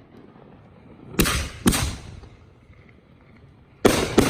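Four sharp bangs from a professional aerial fireworks display, in two pairs, each bang trailing off in a rolling echo.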